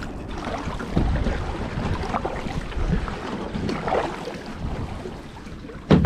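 Kayak paddle strokes dipping and splashing in river water, a few irregular splashes, with wind buffeting the microphone as a low rumble.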